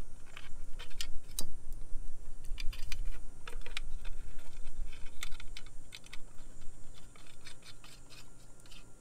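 Irregular light metallic clicks and rattles as a thin turbo heat shield and its small bolts are fitted by hand onto a 6.0 Powerstroke's Garrett turbocharger, thickest in the first few seconds and thinning out toward the end.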